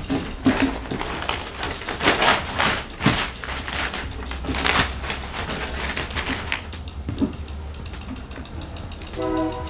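Crinkling and rustling of a metallic copper-nickel Faraday fabric sheet being folded over by hand, with a few knocks about seven seconds in as a meter is set down on it. A brief tone sounds near the end.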